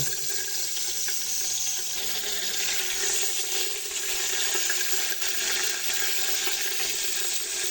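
Whole spices frying in hot oil in a cooking pot, a steady sizzle throughout.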